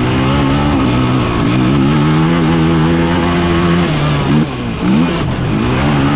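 Off-road vehicle engine running hard at steady revs, with the pitch dropping and climbing again about four seconds in and once more just after, as with throttle lifts or gear changes, over wind and gravel noise.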